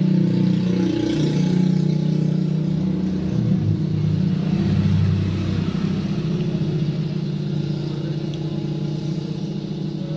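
An engine running steadily, its pitch shifting a little now and then.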